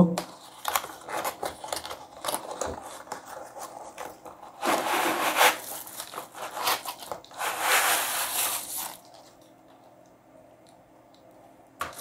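Cardboard keyboard box being opened and a plastic-wrapped keyboard slid out of it: small clicks and rustles of the flap, then two longer stretches of cardboard scraping and plastic crinkling, about five and eight seconds in.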